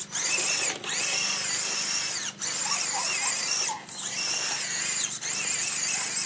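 Axial SCX10 Honcho RC crawler's electric motor and gear drive whining as it drives into mud, the pitch rising and falling with the throttle. The whine cuts out briefly about every one and a half seconds between bursts of throttle.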